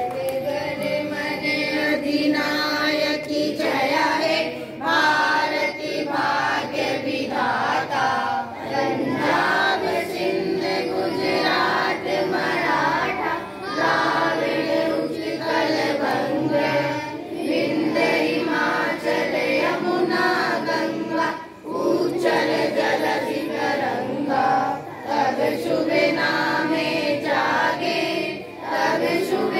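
A group of schoolchildren singing together in chorus, with short pauses between lines.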